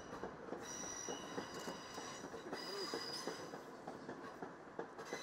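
Stationary high-speed train at the platform: a high-pitched electrical whine that comes and goes in stretches of a second or so, over a steady hiss with scattered light knocks.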